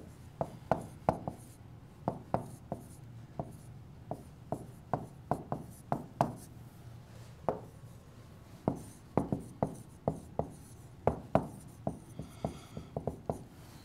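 A stylus writing on a touchscreen display: an irregular string of sharp, light taps and clicks, about two or three a second, as handwriting is written stroke by stroke.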